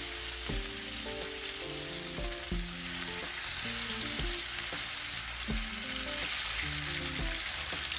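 Seasoned salmon fillets sizzling steadily in hot oil in a nonstick frying pan, with background music underneath.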